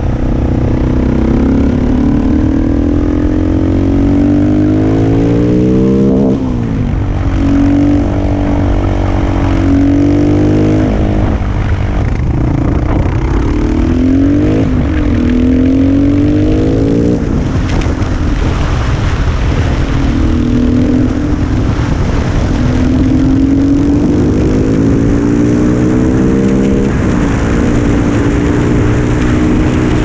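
Husqvarna SM 610 supermoto's single-cylinder four-stroke engine under way. The revs climb steadily several times over and drop sharply between climbs as it accelerates and shifts.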